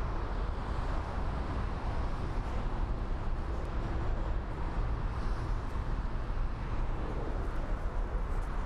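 Steady low rumble of aircraft noise at an airport, even throughout with no distinct events.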